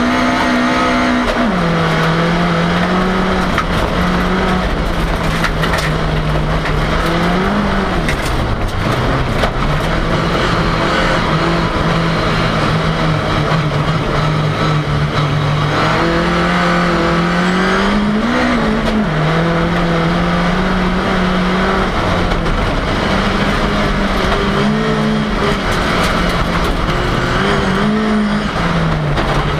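Ford Cortina race car's engine heard from inside the car while being driven hard, its revs rising and falling continuously, with quick climbs and sharp drops about eight and eighteen seconds in.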